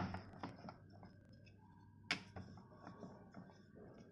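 Wooden rolling pin working dough on a round metal rolling board, giving light clicks and taps as the pin knocks against the board's rim, with a sharper knock about two seconds in.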